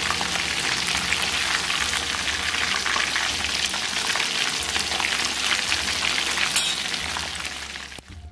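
Flour-coated chicken drumsticks deep-frying in hot oil in a steel karahi: a dense, steady crackling sizzle. The sizzle fades near the end and then cuts off abruptly.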